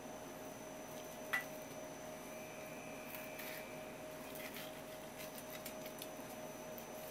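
Knife slicing raw tuna on a wooden cutting board: faint scattered ticks, with one sharp click about a second in, over a steady hum.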